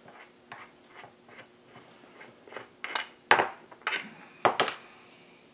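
Metal clicking and clinking from a case-fitting puller being backed off and handled on a chainsaw crankcase. Light, regular ticks at first, then several louder metallic clacks about three seconds in.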